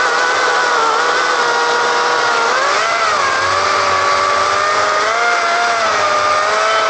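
Cordless 40-volt electric chainsaw running under cutting load. Its motor whine dips in pitch briefly about three seconds in and starts to bend again near the end.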